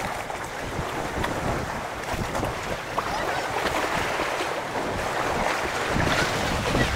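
Choppy water splashing and lapping against wooden pilings, with wind buffeting the microphone.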